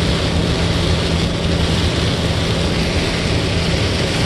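Heavy downpour: a loud, steady hiss of rain, with a steady low hum underneath.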